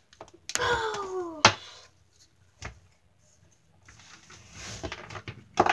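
Plastic wrestling action figures being handled and knocked against a toy ring, giving sharp clacks, the loudest about a second and a half in and another just before the end, with rustling handling noise between them. About half a second in, a short falling voice-like cry sounds just before the loudest clack.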